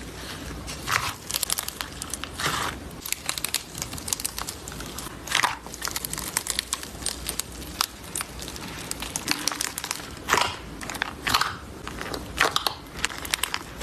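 Slime being squeezed and poked by hand: a dense run of small crunchy crackles and clicks, with louder sharp pops every few seconds.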